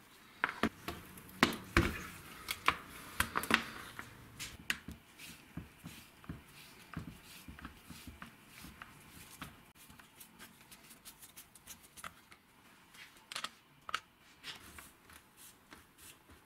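Sharp clicks and knocks of gloved hands and a screwdriver working on the plastic housing of an old hammer drill being taken apart. A dense run of clicks in the first few seconds, then scattered light ticks, and a pair of louder clicks about three-quarters of the way through.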